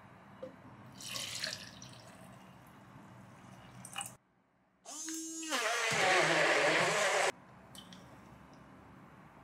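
Liquid poured from a jug into a portable blender cup packed with blueberries and banana, filling with a pitched gurgle and then a heavier splashing pour that cuts off suddenly.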